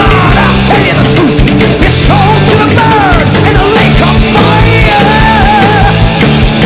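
Loud rock music with a steady driving beat and a melody line that bends in pitch.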